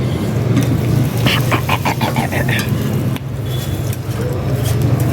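Steady low hum of busy outdoor background noise, with a brief stretch of indistinct voices or clatter about a second in.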